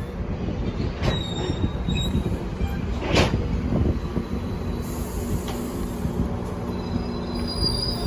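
GO Transit commuter train rolling slowly into a station, a steady low rumble with thin high-pitched wheel squeals. There is one brief sharp noise about three seconds in.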